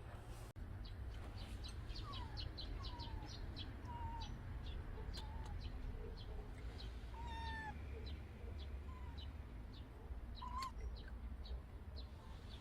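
Kitten mewing repeatedly in short, thin, high cries, each a brief bend in pitch, with quick high chirps in between.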